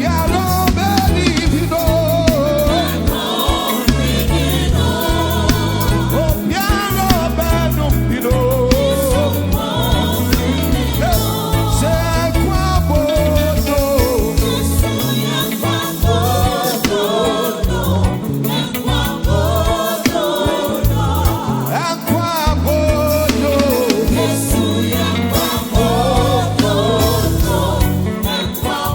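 Live gospel praise music: a band playing a steady beat, with lead and choir voices singing.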